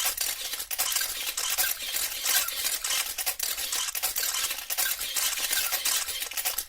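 Scratchy rustling and rubbing on a body-worn camera's microphone, mostly high-pitched, with many irregular light clicks and clinks.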